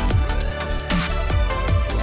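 Background electronic music with a steady drum beat.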